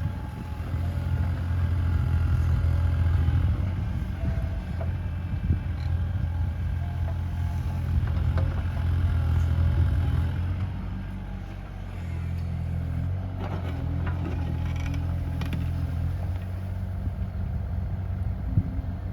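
Bobcat E37 compact excavator's diesel engine running steadily under load while digging hard, compacted soil. The engine eases briefly a little past halfway, then comes back, with bucket scraping and clattering against the hard ground shortly after.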